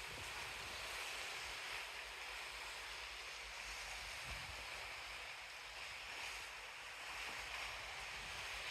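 Steady rushing wash of sea water past a moving ship, with a few brief gusts of wind on the microphone.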